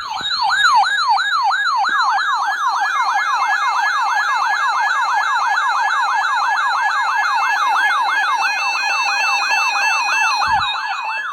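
Electronic siren-style alert tone, loud and continuous: a fast yelp of pitch sweeps, each falling, about four a second, with a fainter higher tone joining about three seconds in.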